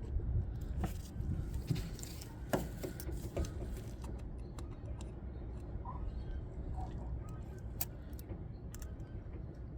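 Scattered small metallic clicks and taps from hand tools working on a distributor's contact-breaker points during a point-gap adjustment, over a low steady background rumble.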